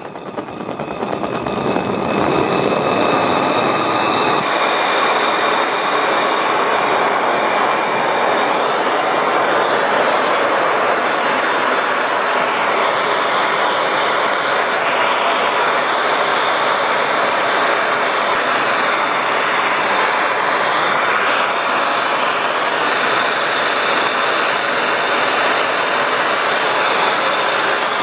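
Hand-held MAPP gas torch lit with a click, its flame building up over about two seconds and then burning with a steady hiss while it heats aluminum tubing for brazing.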